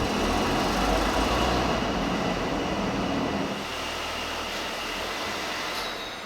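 Steady vehicle rumble and road noise with a faint steady whine, fading gradually, with the low rumble dropping away about halfway through.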